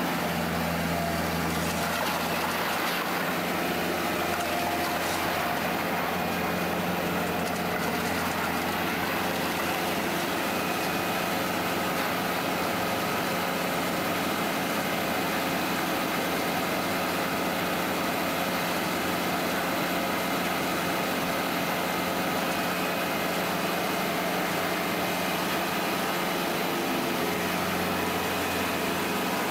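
Heavy demolition machinery's diesel engine running steadily, an unbroken hum.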